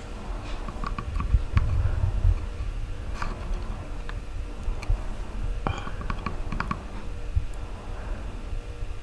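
Scattered small clicks and taps from handling a soldering iron and thin wires at a workbench, with a few low bumps about two seconds in.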